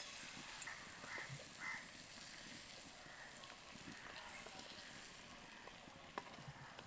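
Pitha deep-frying in medium-hot oil in a kadai: a faint, steady sizzle, with a few sharp clicks of a utensil against the pan, the clearest about six seconds in.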